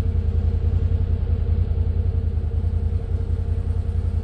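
An engine idling steadily: a low rumble with a fast, even pulse and a faint steady hum above it.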